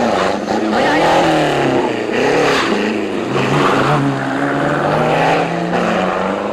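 Rally car engine revving hard, its pitch climbing and dropping several times through gear changes, then holding a steadier note over the last few seconds.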